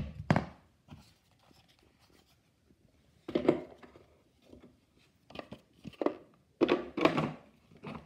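Handling of plastic vacuum-cleaner parts: short groups of clunks and rustling, one right at the start, another about three and a half seconds in, and a few more in the last three seconds, with quiet between.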